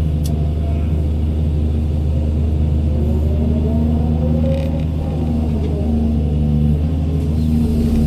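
Doosan 210W wheeled excavator's diesel engine running steadily under working load, with a whine that rises and then falls in pitch around the middle as the hydraulics work.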